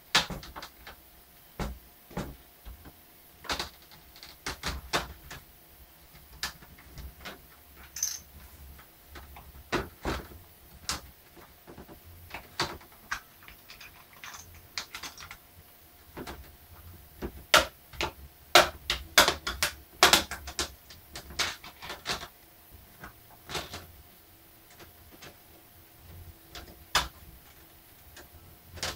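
Plastic screen bezel of an HP 650 laptop being pried off its clips with a plastic pry tool: irregular sharp clicks and snaps. The loudest come in a quick cluster about two-thirds of the way through.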